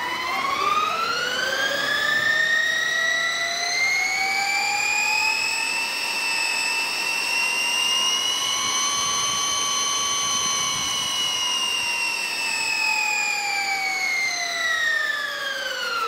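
Sur-Ron Ultra Bee electric dirt bike's motor and belt drive whining as the rear wheel spins on a stand. The pitch rises over the first few seconds, holds steady, then falls as the wheel winds down near the end.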